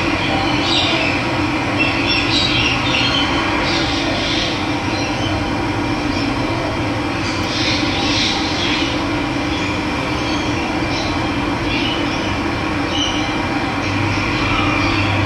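Steady rush of running water with birds chirping on and off over it.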